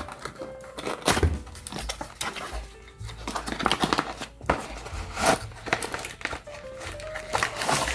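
Packaging being handled and unwrapped, crinkling and rustling in irregular strokes, over background music.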